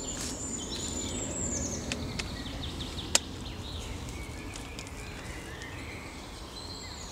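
Wild birds singing and chirping, with many short high calls and falling whistles over a steady outdoor hum. A single sharp click sounds about three seconds in.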